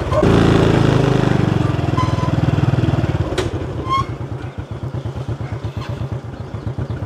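Small motorcycle engine running under load on a rough dirt track, then dropping to a steady, evenly pulsing idle about three seconds in as the bike stops.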